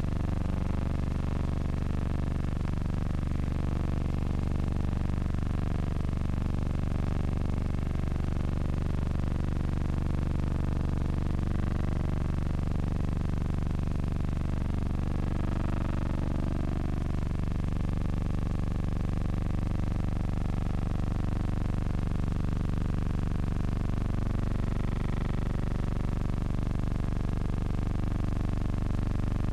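Steady low droning hum with no distinct events; its lowest tones shift about seventeen seconds in.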